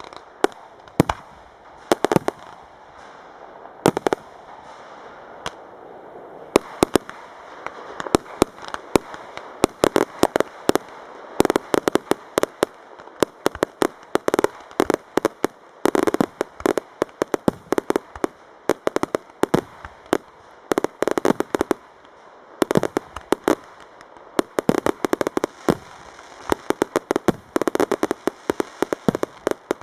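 Fireworks display: a dense, continuous barrage of sharp bangs and crackling, several reports a second and often in rapid clusters.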